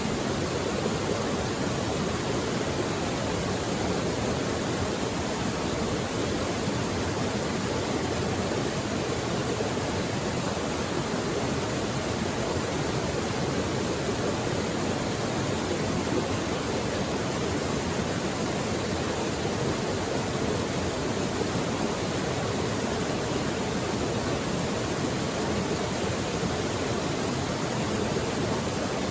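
Mountain creek water rushing over rocks, a steady even hiss of flowing water.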